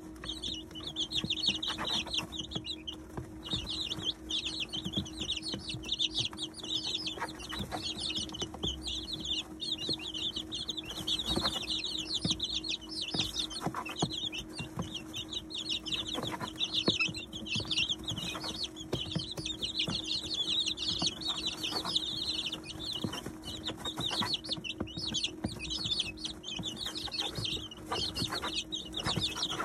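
A brood of 19-day-old chicks (Polish, Chabo, Ameraucana, Salmon Faverolles and Brahma) peeping continuously in many overlapping high cheeps. Scattered light clicks of beaks pecking at grain and the feed dish come through over a steady low hum.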